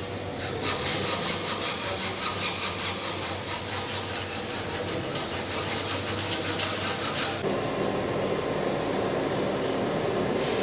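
Hand hacksaw cutting a metal workpiece clamped in a bench vise, in rhythmic back-and-forth strokes. About seven seconds in, the sound changes to a steadier rasping of a hand file on metal.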